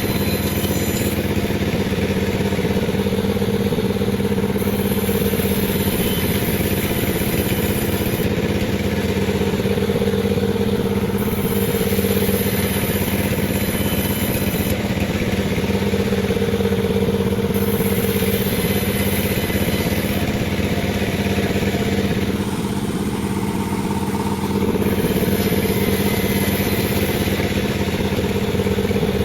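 Panda36 two-stroke chainsaw running steadily at high speed while ripping a durian log. The sound eases slightly for a couple of seconds about 22 s in, then picks back up.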